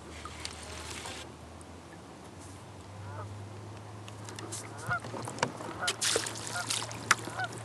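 Geese honking several times, short calls that begin about three seconds in. Alongside them come splashes and clicks, loudest between about five and seven seconds, as a hooked northern pike thrashes at the surface beside the kayak while it is led to the landing net.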